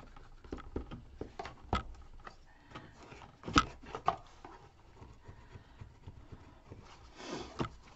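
Irregular light taps and knocks of hands pressing paper into a chipboard box and handling it on a cutting mat, the sharpest knock about three and a half seconds in. A short rustle of paper near the end.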